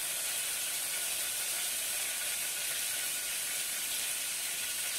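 Mustard seeds, cumin and crushed garlic sizzling steadily in hot oil: the tempering for a chutney.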